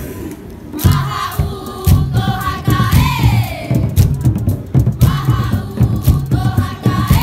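Marquesan dance troupe chanting together, many voices rising and falling in pitch, over a steady low drumbeat.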